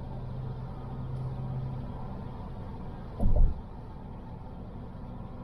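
Car driving, with steady engine and road noise heard from inside the cabin. A single short, loud, low thump comes a little over three seconds in.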